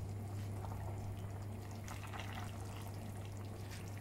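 Chicken soup simmering in a stainless steel pot as leafy greens are pressed down into the broth: faint bubbling and liquid sounds with scattered small crackles, over a steady low hum.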